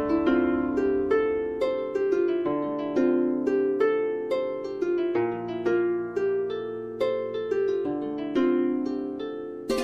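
Background music: a gentle melody of plucked-string notes, each struck sharply and left to ring and fade.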